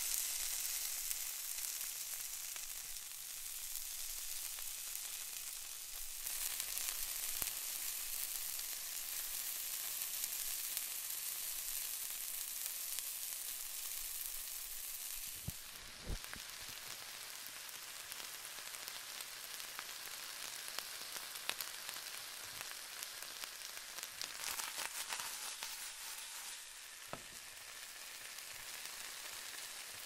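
Breakfast sausage sizzling in a very hot skillet: a dense high hiss that eases off a little about halfway through, with a couple of sharp knocks as the sausage rolls around in the pan.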